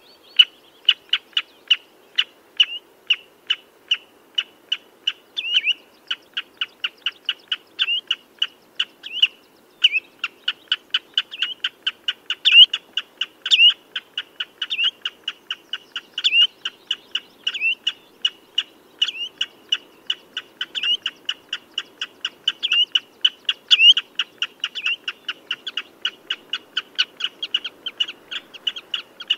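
Common redshank calling: a long, unbroken series of short, sharp piping notes, about four a second, some louder and slightly drawn out.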